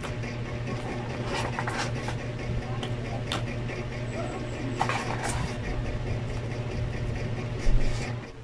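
Steady background noise with a constant low hum, which drops away at the very end. Over it come light clicks and taps of plastic sauce cups being stacked on a steel tray, and a louder thump near the end.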